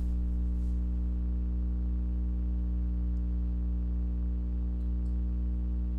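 A steady low electrical hum with a stack of evenly spaced overtones, unchanging, with nothing else over it.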